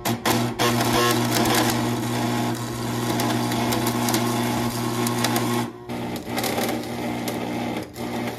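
Electric angle grinder running steadily, grinding down the rough spots of a freshly welded steel support bar. The motor's hum holds steady, dipping briefly about six seconds in.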